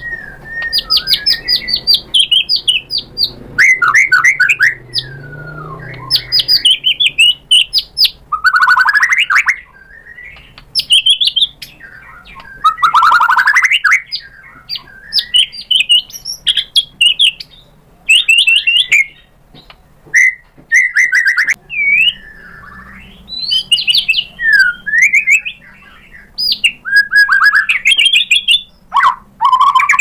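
White-rumped shama singing a loud, varied song in quick phrases: rapid trills, rising and falling whistles, and a few harsh rasping notes, with short pauses between phrases.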